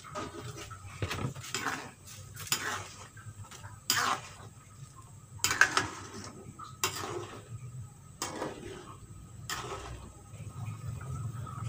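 A metal utensil clinking and scraping against a cooking pot, about ten irregular knocks and scrapes, with a steady low hum underneath.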